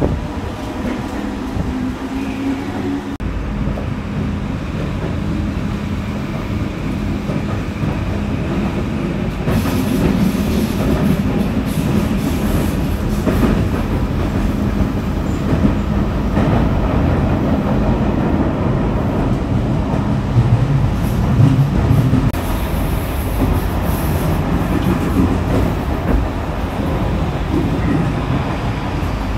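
Keihan Electric Railway commuter train running on the line, heard from inside the passenger car: a steady rumble and rattle of wheels on rails, getting louder and harsher about ten seconds in.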